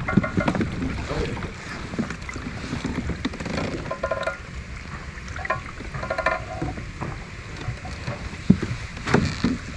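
Wind rumbling on the microphone of a kayak-mounted camera on open water. A few short pitched calls come about four and six seconds in, and a few sharp knocks near the end.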